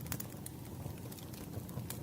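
Wood fire crackling: scattered sharp pops and snaps over a low steady rumble.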